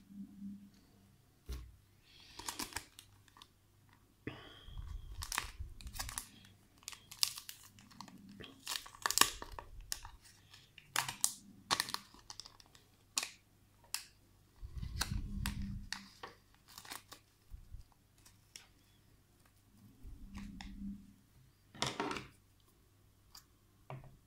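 Crinkling and rustling of small plastic and paper tackle packets being handled and opened on a wooden tabletop, with many sharp irregular crackles and a few dull thumps.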